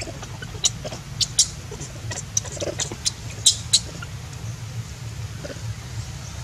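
Newborn long-tailed macaque giving short, high squeaks, a handful of them over the first few seconds with a quick pair near the middle, then none. A steady low hum runs underneath.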